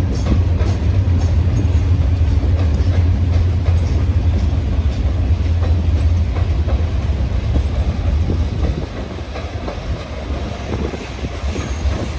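Providence & Worcester freight train rolling along with a steady low rumble and wheels clicking over the rail joints; the rumble eases a little about two-thirds of the way through.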